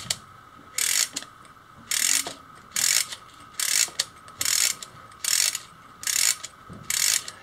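A hand-wound 3D printed fan with a tape-measure mainspring being wound turn by turn. Each turn of the key gives a short burst of ratchet clicking, about eight bursts in all, a little under a second apart, as the spring is tensioned.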